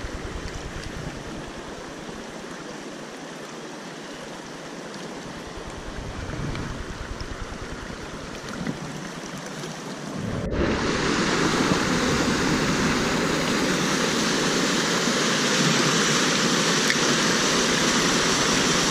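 Shallow stony stream flowing: a gentle burble of water over stones, then a sudden jump about ten seconds in to the louder, steady rush of water tumbling through a small cascade.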